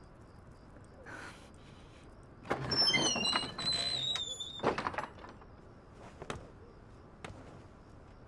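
A wooden door creaks open with a high, stepped squeak, then a few slow, soft footsteps land on a hard floor.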